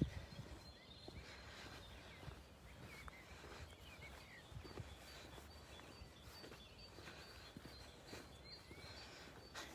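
Quiet outdoor ambience with faint, short bird chirps and a few soft knocks.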